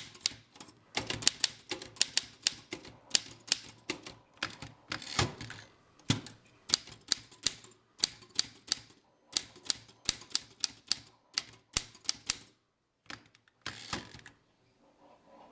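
Rapid, irregular key clicking, as in fast typing, in quick runs of sharp clicks. It stops about twelve and a half seconds in, and a few scattered clicks follow near the end.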